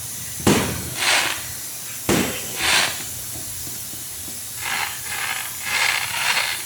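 Fireworks going off at a distance: two sharp bangs about a second and a half apart, each followed by a short hissing burst. Several more hissing bursts come near the end.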